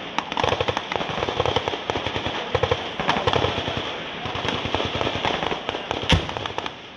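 Small-arms gunfire: many sharp cracks in quick, irregular succession, with one much louder bang about six seconds in.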